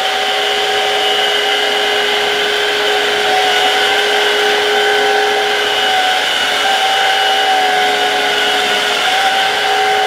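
Midea stick vacuum cleaner running at a steady speed, its floor head pushed over a rug: a constant motor whine over a rush of air.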